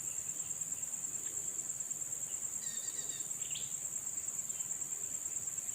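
Steady, high-pitched chorus of insects such as crickets, unbroken throughout, with a few faint short chirps about halfway through.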